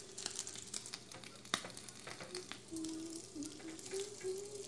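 Bacon sizzling and crackling in a small nonstick frying pan, with frequent small pops and one sharper click about a second and a half in, as the strips are turned and pressed with tongs.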